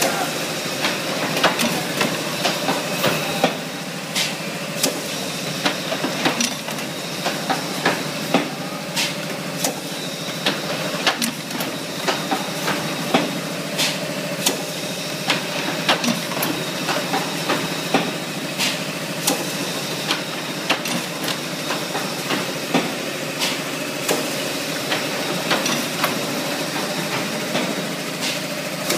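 Two-cavity automatic PET bottle blow-moulding machine running: a steady mechanical hum and hiss, broken by frequent irregular sharp clacks and knocks from its moving parts.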